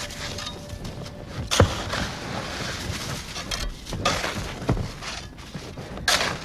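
Pickaxes and hoes striking stony ground: four sharp, separate hits a second or two apart over a steady rustling, scraping background.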